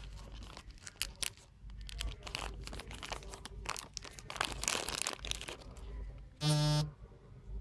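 Crinkling and rustling of packaging being handled, a quick run of small crackles, followed about six and a half seconds in by a short, loud, low buzzing tone lasting about half a second.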